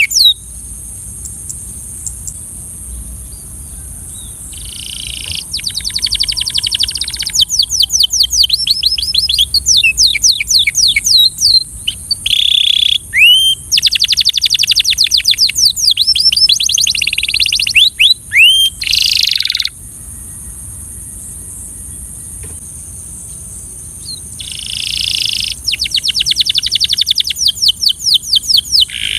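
A Belgian canary singing in phrases of rapid repeated trilled notes, each phrase a few seconds long, with pauses of several seconds in between. A steady high hiss runs underneath.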